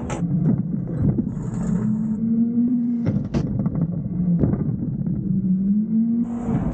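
Front-loader garbage truck's diesel engine running at raised revs to drive the hydraulic lift arms while a steel compactor bin is held upside down over the hopper and shaken empty. A few sharp metal bangs sound as the bin knocks against the arms and the trash drops in.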